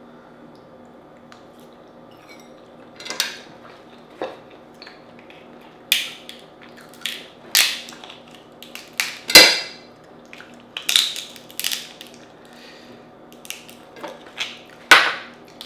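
A metal crab pick clicking and scraping against Dungeness crab claw shell while digging out the meat, in irregular sharp knocks and short scrapes that begin about three seconds in, the loudest knock about nine seconds in.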